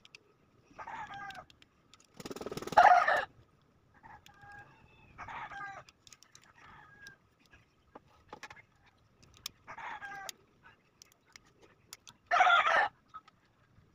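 Chickens calling in short bursts every second or two, the loudest call about two seconds in and another near the end. Light clicks of small parts being handled fall in between.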